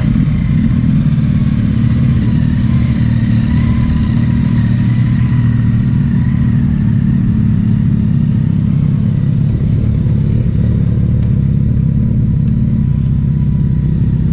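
Suzuki Hayabusa and Ducati Multistrada motorcycle engines running steadily as the bikes pull away at low speed, a loud, even, low-pitched engine sound.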